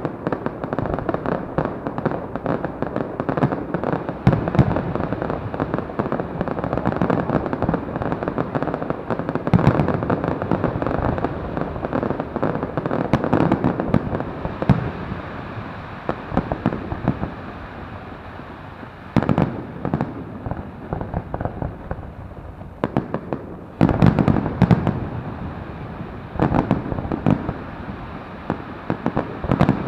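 Fireworks going off in a dense barrage of crackling pops and bangs. The barrage thins out a little past the middle, then heavier bangs come back near the end.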